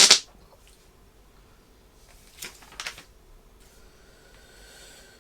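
A short loud rush of noise at the very start, then a quiet stretch with two faint clicks about half a second apart, and a faint steady hum in the last second and a half.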